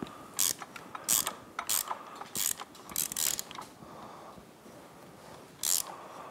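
Socket ratchet clicking in short runs as it turns a Honda Grom's crankshaft by hand, rotating the engine toward top dead center on its timing marks. The runs come every second or less, then pause for a couple of seconds before a last run near the end.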